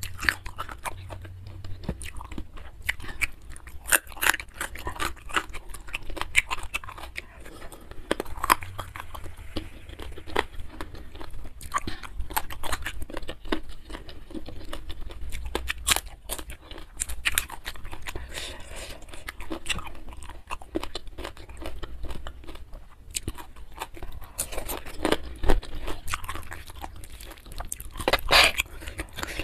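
Close-miked eating: crisp, crunchy bites and chewing of raw vegetables such as green beans, a steady run of sharp crackling snaps.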